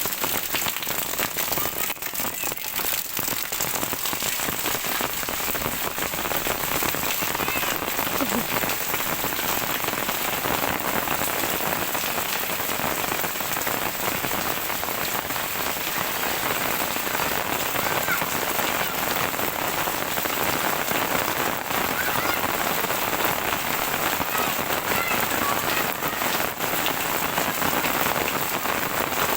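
Heavy rain falling steadily, a dense, even wash of drops with no break.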